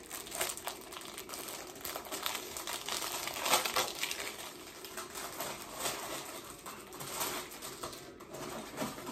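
A packet of paper napkins rustling and crinkling as it is handled and the napkins are taken out and laid on the plates, in irregular crackles.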